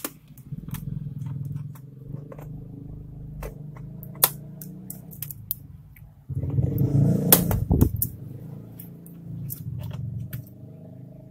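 Plastic clicks and snaps of an Asus A43S laptop keyboard being pried free of its retaining latches along the top edge, with low rubbing and handling noise of the keyboard against the case. The sharpest snaps come about four seconds in and around seven seconds in, where the rubbing is also heaviest.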